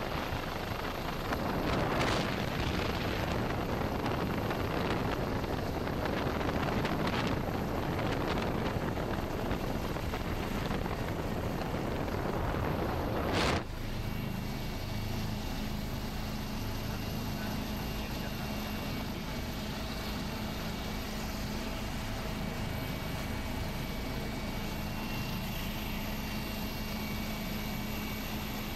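A loud, even rushing noise of floodwater. About halfway through it cuts off sharply and gives way to the steady hum and whine of a helicopter's engine and rotors.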